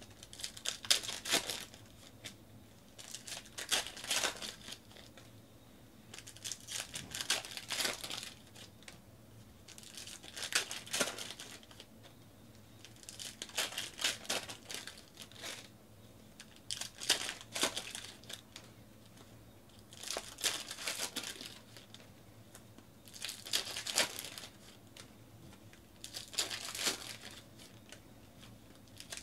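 Trading card pack wrappers being torn open and crinkled, one pack after another: a burst of crinkling and tearing about every three seconds.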